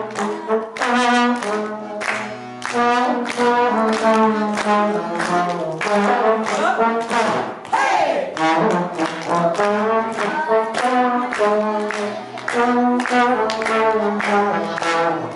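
A trombone and an accordion playing a tune together live, notes following one another in quick succession over a held lower accompaniment.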